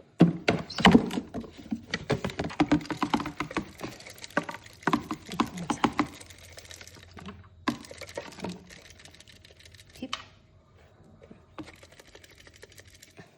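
Plastic parts of a Roomba i5 robot vacuum's dust bin clicking and rattling as the bin is handled and fitted back. The clicks come thick and fast at first, then thin out to a few single clicks.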